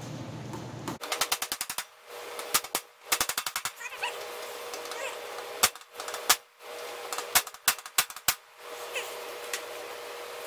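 Rapid runs of sharp metal taps on a socket sitting on a bicycle fork's steerer tube, driving the star nut down inside: quick bursts of strikes with short pauses, stopping about eight seconds in.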